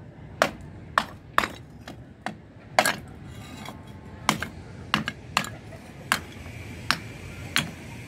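A small hammer striking a broken terracotta flower pot on a concrete floor, cracking it into large shards. About a dozen sharp, irregular blows fall roughly one every half second to a second.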